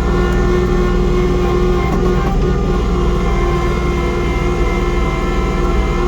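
Kubota compact tractor's diesel engine running steadily at working speed with its snowblower, an even drone with a constant whine on top.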